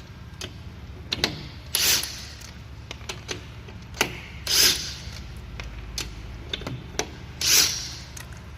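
Makita DTW300 18 V cordless impact wrench in assist mode, run in three short bursts about three seconds apart, with sharp clicks between them.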